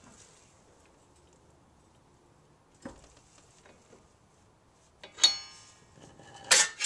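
Metal hand tools clinking: a faint click about three seconds in, then two loud metallic clanks that ring briefly, about a second apart near the end, as the ratchet and socket come off the wheel-stud installing tool and are set down.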